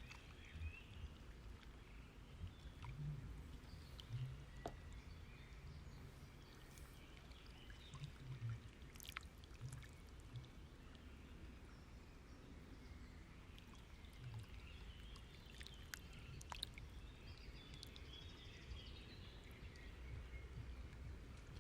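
Near silence: faint room tone with a few small, scattered clicks.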